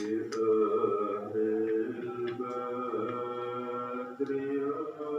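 Music with a singing voice holding long notes that change pitch every second or so.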